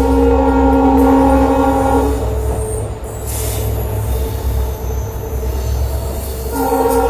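Indian Railways WDG-class diesel locomotive sounding its air horn, a steady multi-tone chord that cuts off about two seconds in. The engine's low rumble and the train's running noise carry on, and the horn sounds again near the end.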